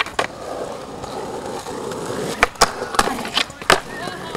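Skateboard wheels rolling steadily, with a sharp clack right at the start and a quick run of about five sharp board clacks past the middle.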